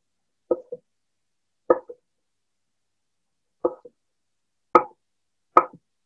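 Chef's knife bias-cutting asparagus on a cutting board: five irregularly spaced knocks of the blade meeting the board, most followed by a quick lighter tap.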